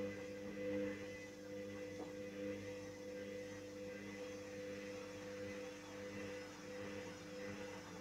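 Hoover Dynamic Rapid 14 washing machine running with its drum turning wet laundry: a steady motor hum during a spin with an unbalanced load.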